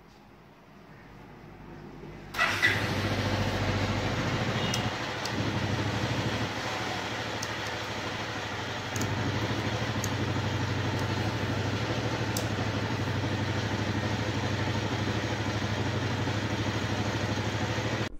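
Bajaj Pulsar motorcycle's single-cylinder engine started on the electric starter, catching about two seconds in, then idling steadily with a couple of small changes in level.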